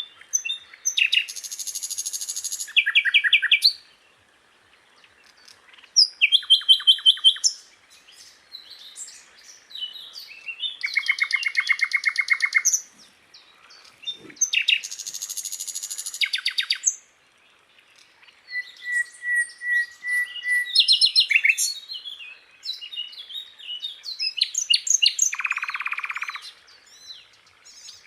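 Sikatan londo, an Indonesian flycatcher, singing a varied song of separate phrases: fast trills and rapid runs of repeated high notes, a short string of even whistled notes, and a buzzy rattle near the end, with brief pauses between phrases.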